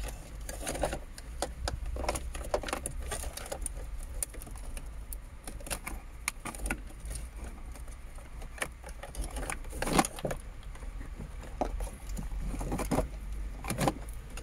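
Plastic wiring-harness connectors and loose wires being handled and plugged in: irregular clicks, taps and rattles, with two louder knocks, one about two-thirds through and one near the end, over a steady low hum.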